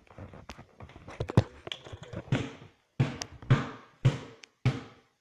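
Bottle of hot sauce being shaken and smacked upside down to get the sauce out: a run of sharp knocks about twice a second, each with a short fading tail, with lighter taps and knocks before them.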